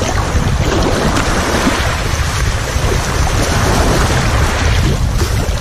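Wind rumbling on the microphone over the steady wash of sea waves on the shore.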